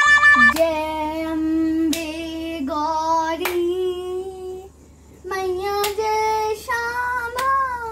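A young girl singing a devotional song in long, sliding held notes, with a few sharp claps at uneven intervals. A short instrumental jingle cuts off about half a second in, just as she starts, and a steady low hum sits under the singing.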